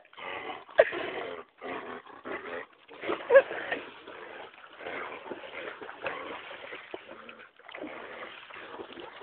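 A dog splashing and wading through shallow water in bouts, with a couple of short whimpers, the clearest about a second in and about three and a half seconds in.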